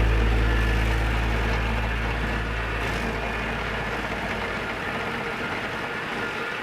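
Vermeer SC70TX stump grinder's engine running, its low rumble dying away over the first couple of seconds and then holding at a lower, rougher level.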